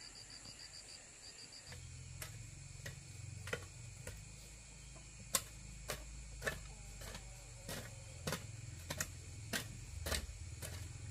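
Irregular sharp clicks and knocks, roughly one or two a second, over a steady low hum that comes in about two seconds in; a high insect-like chirp pulses rapidly at the very start.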